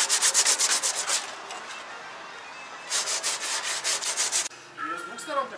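Sanding, an abrasive rubbing back and forth in quick, even strokes, about eight a second, in two runs with a softer stretch between.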